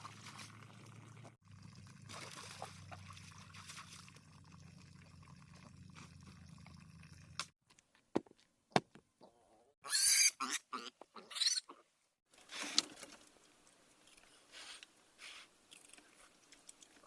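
A pig squealing in short, high-pitched, rising-and-falling cries twice, about ten and eleven and a half seconds in, after a few sharp clicks. A steady low hum runs under the first half.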